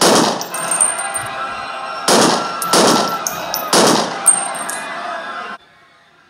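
Gunshot sound effects laid over a toy-gun scene: about four loud shots with long echoing tails, the noise cutting off suddenly about five and a half seconds in.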